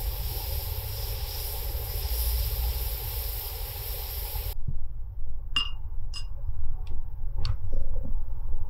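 Stew simmering in a large steel wok over a wood fire, a steady hiss over a low rumble. It stops abruptly about four and a half seconds in, and a few short high chirps and clicks follow, spaced about half a second to a second apart.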